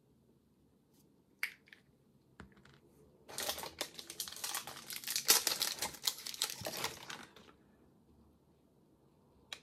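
Plastic wrapping around a small bottle of alcohol ink crinkling and tearing as it is unwrapped. A few light rustles and clicks come first, then about four seconds of dense crinkling.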